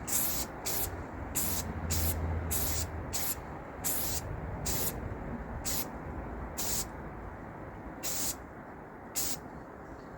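Aerosol spray-paint can sprayed in about a dozen short hissing bursts onto a plastic model car engine. The bursts come close together at first and further apart toward the end, over a low steady rumble of wind on the microphone.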